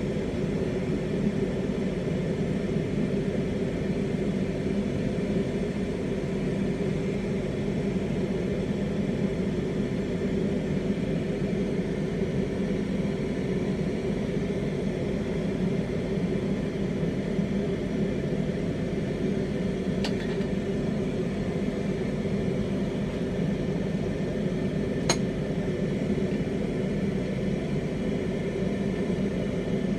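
Lampworking bench torch flame burning steadily with an even, low rushing noise while glass is heated in it. Two sharp ticks stand out, about five seconds apart, in the later part.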